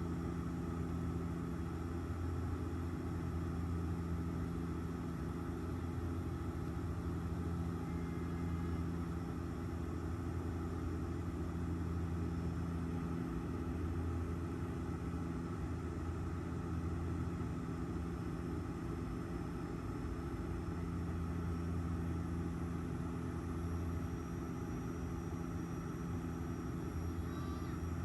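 Airliner cabin noise in flight: a steady drone of engines and airflow with a low, even hum.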